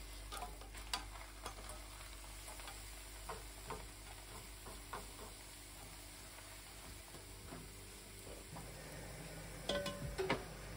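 A thin pancake frying in a pan with a faint steady sizzle, with scattered light taps and scrapes of a spatula against the pan. A few louder clinks come near the end.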